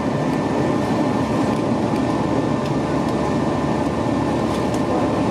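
Steady engine and airflow noise inside the cabin of a Boeing 737-800 powered by CFM56-7B engines, with faint steady tones in it and a few light rattles near the end.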